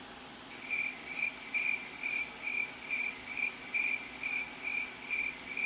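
Cricket chirping, a steady-pitched chirp repeated about twice a second, starting about half a second in and stopping suddenly at the end. It is typical of the stock cricket sound effect laid over an awkward silence.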